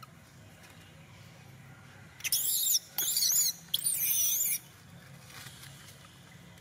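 Baby long-tailed macaque screaming: three shrill cries that rise and fall in pitch, starting about two seconds in and ending around halfway through. It is the distress cry of an infant wanting milk that its mother will not let it nurse.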